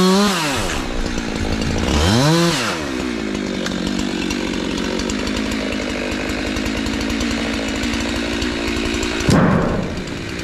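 Jonsered two-stroke chainsaw coming off full throttle at the end of a cut. It revs up and back down once about two seconds in, then idles steadily, with one more short rev near the end.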